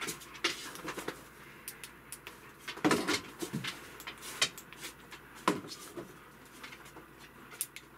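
Small round LED puck lanterns being switched on and handled on a tabletop: several sharp, spread-out clicks and knocks from their push-buttons and from the lanterns being set down. The loudest comes about three seconds in.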